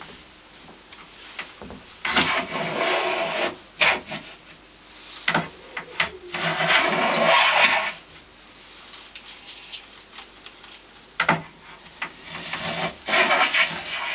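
A Stanley No. 72 chamfer plane shaving a chamfer along the edge of a wooden table leg, its blade set for a very fine cut: three long planing strokes, with a few sharp knocks between them.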